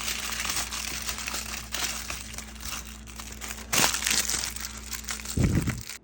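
Plastic bag and aluminium foil crinkling and crackling as they are rolled tightly around eggs, louder about four seconds in, with a low bump near the end.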